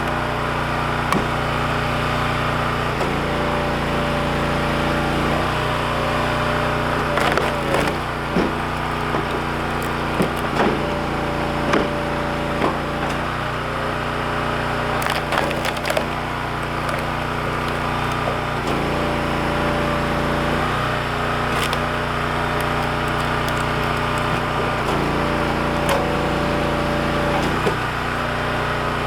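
Engine-driven log splitter running steadily, its note shifting every few seconds as it works, while cherry logs crack and splinter apart under the wedge, with the loudest cracks in the middle of the stretch.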